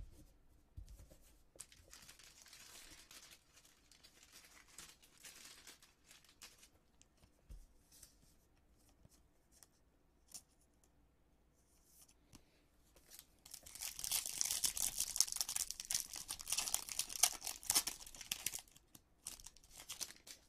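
A baseball card pack's wrapper being torn open and crinkled. There is a fainter rustle a couple of seconds in, and a loud, dense crackling for about five seconds past the middle.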